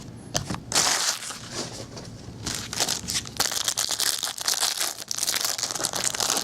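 Plastic wrapping on a trading-card box or pack being torn open and crinkled: a dense run of sharp crackles that starts about a second in and goes on without a break.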